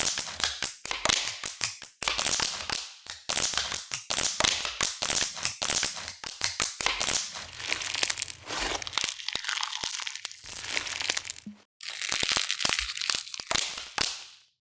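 Rapid, dense crinkling and crunching crackles that fade out near the end.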